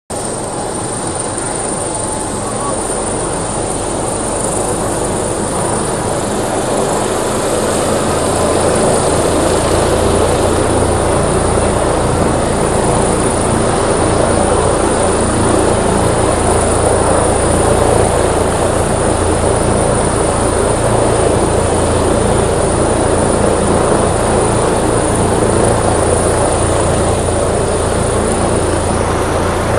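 AgustaWestland AW609 tiltrotor running on the ground with its twin turboshaft engines driving both prop-rotors. The sound grows louder over the first eight seconds or so as a low rotor rumble builds, then holds steady, with a thin high turbine whine over it.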